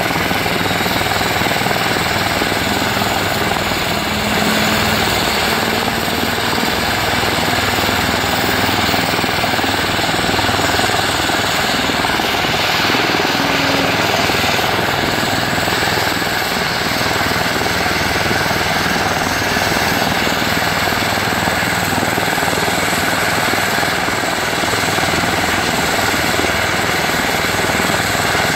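Airbus EC145 T2 helicopter running steadily on the ground, its twin turboshaft engines and rotors making a constant whine and rush.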